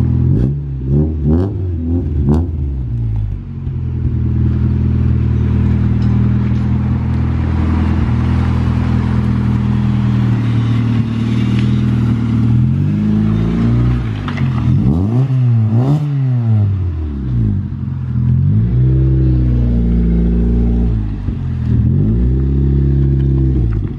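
Honda Civic EJ9 running through a freshly fitted custom exhaust system, idling steadily and revved several times: the pitch rises and falls in the first few seconds, again around the middle, and again a few seconds before the end. The note is not too loud for a new track exhaust, which is expected to go a bit deeper as it beds in.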